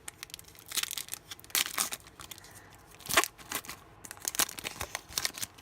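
Wrapper of a football trading-card pack being torn open and crinkled, with several sharp rips, the loudest about three seconds in.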